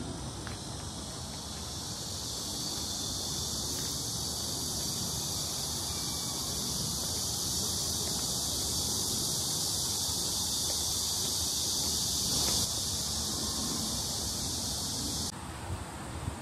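Steady, high-pitched insect buzz that cuts off suddenly near the end, over a low outdoor rumble.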